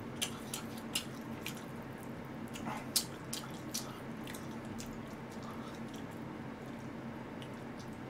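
Eating sounds: a few scattered clicks and taps, mostly in the first half and loudest about three seconds in, from chopsticks picking braised pig's trotters (jokbal) out of foil and plastic trays, with soft wet mouth sounds of eating. A faint steady hum lies under it.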